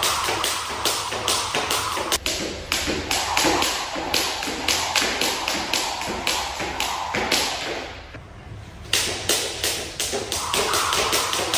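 Jump rope skipped in double unders, the rope slapping the wooden floor in a fast, steady rhythm of about three to four strikes a second. About two thirds of the way through, the rhythm stops for about a second, then starts again.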